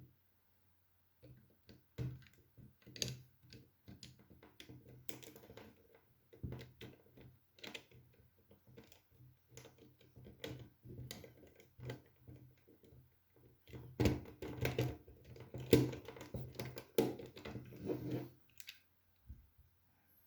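Lego bricks being handled and pressed together: irregular small plastic clicks and taps, busiest for a few seconds near the end.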